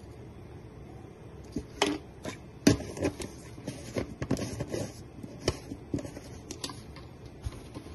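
Kitchen clatter: a run of irregular clicks and knocks, like utensils and dishes being handled, with two louder knocks around two and three seconds in.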